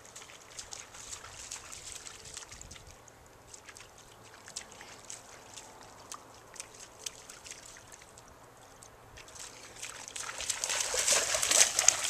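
Rhodesian Ridgeback splashing in shallow river water: scattered small splashes from its paws, then louder, continuous splashing for the last two seconds as it runs out of the water.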